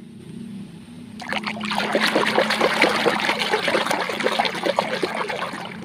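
A hand swishing and splashing in a tub of foamy soapy water, washing a plastic toy. The sloshing starts about a second in and goes on as a busy run of splashes until just before the end.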